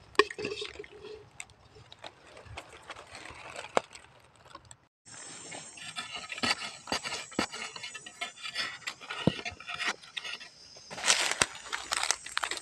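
Scraping and crackling of dry soil, twigs and leaf litter as a beetle burrow is dug out with a stick and fingers, in many short irregular strokes that grow louder near the end. A steady high-pitched buzz sets in about five seconds in.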